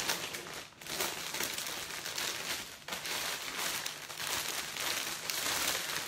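Clear cellophane wrap crinkling and rustling as it is gathered by hand into pleats around a hamper basket, with a couple of brief lulls.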